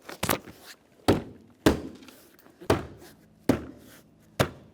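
Plastic interior door trim panel being pressed and knocked onto the door so that its retaining pins seat in their holes. There are six sharp thunks, roughly a second apart.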